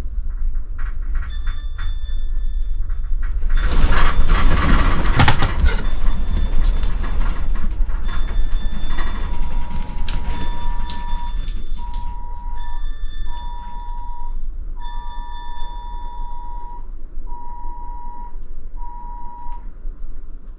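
Earthquake shaking the house: a low rumble with a burst of loud rattling about four seconds in. From about nine seconds on, an electronic alarm beeps in a steady tone, broken into on-off stretches.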